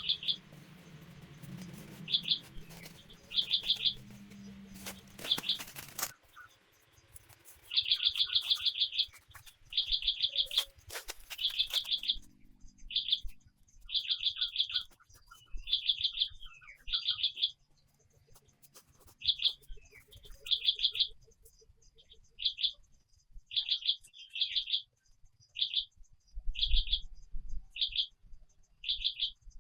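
Forest bird calling over and over in short, high, rapid trilled chirps, one burst every second or two. A low hum fades out after about six seconds, and a few sharp clicks come in the first half.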